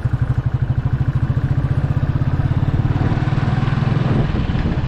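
Royal Enfield Classic 350's single-cylinder engine running while riding, its exhaust giving a fast, even pulsing beat.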